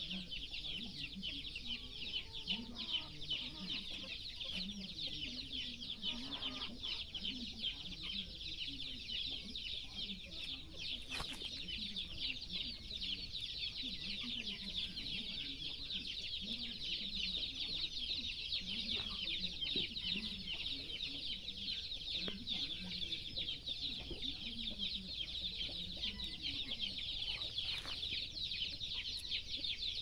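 A dense, steady high-pitched insect drone, with low, soft clucking calls repeating about once a second beneath it and a few faint clicks.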